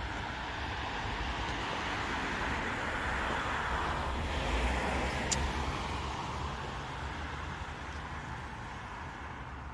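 A passing vehicle on the street: its tyre and engine noise swells to a peak midway and then fades away, with one brief sharp click about five seconds in.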